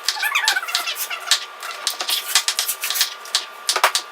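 Rapid, irregular clicking and tapping of kitchen work, many small sharp knocks a second like typing.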